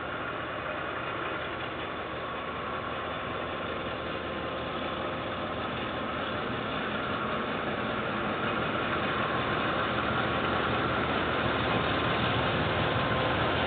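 Diesel locomotive engine running as a KiwiRail train approaches, growing gradually louder.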